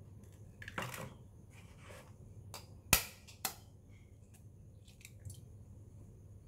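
Eggshells cracked against a metal utensil handle over a stainless steel bowl. A short crunch of shell comes about a second in, then a sharp crack just before three seconds, the loudest sound, and another crack half a second later.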